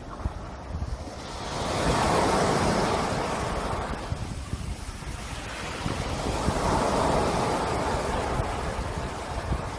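Sea waves washing ashore, two surges swelling and fading, the first about two seconds in and the next near seven seconds, with wind rumbling on the microphone underneath.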